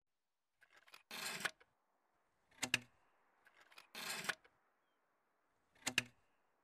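Parts of a roof-rack foot being handled: a short scrape or rustle followed by a sharp double click, repeated twice.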